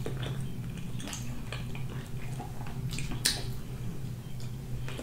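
A person chewing rotisserie chicken close to the microphone, with scattered small mouth clicks and a sharper click about three seconds in, over a steady low hum.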